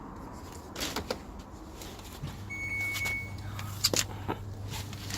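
Scattered knocks and clunks as a Samsung WD80J6410 washing machine is tilted backwards by hand. A low steady hum sets in about two seconds in, and a short high beep sounds near the middle.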